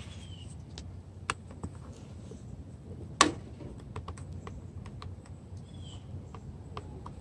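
Plastic clicks and knocks as the ribbed plastic trim cover at the base of a side mirror is pressed by hand into its snap clips on the door, with one sharp, loud snap about three seconds in.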